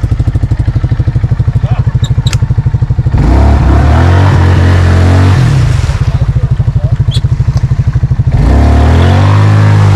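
ATV engine idling with an even pulsing beat, then revved hard twice, about three seconds in and again near the end: the quad is stuck in a mudhole and the rider is gunning it to drive out.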